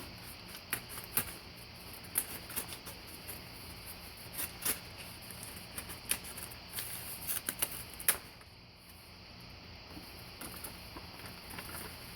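Cardboard box and its packing being handled and opened by hand: irregular crinkling and clicking that dies down about eight seconds in.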